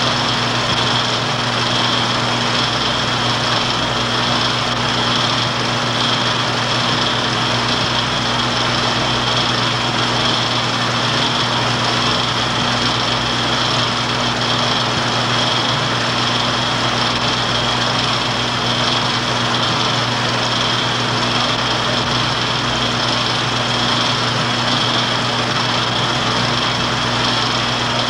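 Film projector running: a steady mechanical whir with a low hum and a thin high whine.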